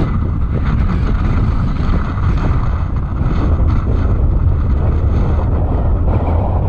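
Strong wind buffeting a GoPro's microphone: a loud, steady low rumble.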